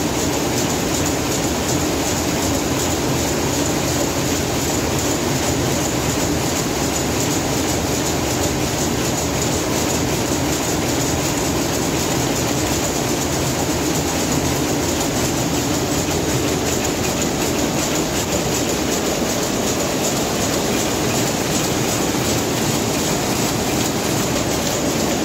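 Rapier weaving looms running at full speed: a loud, steady, dense mechanical clatter that does not let up.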